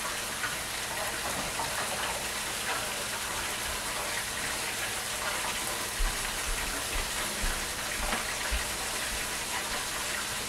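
Stovetop cooking: bell pepper and onion frying in a pan under raw ground beef, with a pot of eggs boiling on the next burner. A steady sizzling hiss with faint crackles.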